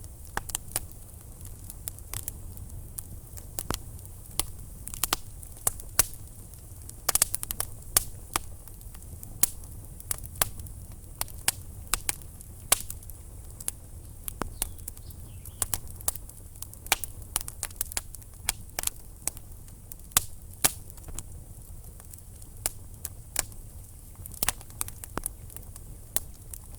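Wood burning in a fireplace, crackling with irregular sharp pops and snaps over a low, steady rumble of flame.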